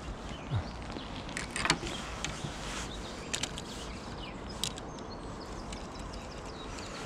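Spinning rod and reel being handled: a few sharp clicks and knocks, the loudest about a second and a half in, over a faint steady outdoor background.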